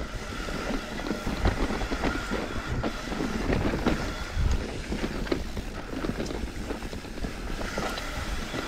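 Mountain bike riding down a dirt forest trail: a steady rumble of tyres over the ground with frequent knocks and rattles from the bike, and wind on the microphone.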